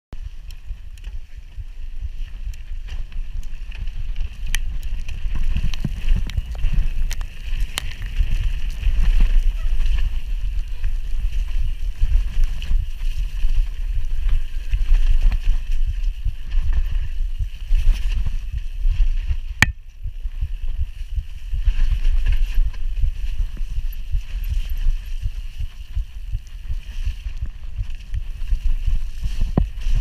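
Bird Aeris One45 mountain bike descending a steep, wet, muddy trail: a loud, uneven low rumble of wind and rough ground on the camera microphone, tyres hissing over the wet mud, and a few sharp clicks from the bike rattling over bumps.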